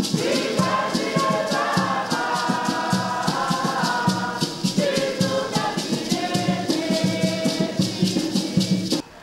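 Choir singing a hymn in several voices, with hand rattles shaking a quick, steady beat; the music stops abruptly just before the end.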